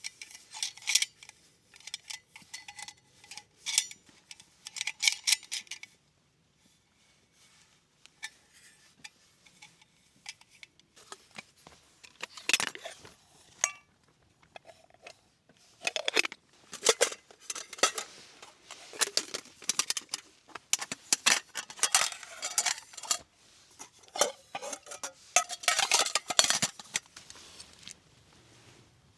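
Camp cookware and utensils being handled: repeated clinks and clatters of metal on metal, some with a short ringing, in bursts with a quieter pause early on.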